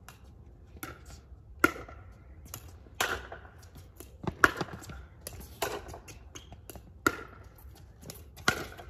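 Pickleball rally: paddles striking a plastic pickleball back and forth, six sharp hits about every one and a half seconds, with fainter taps of the ball bouncing on the court between them.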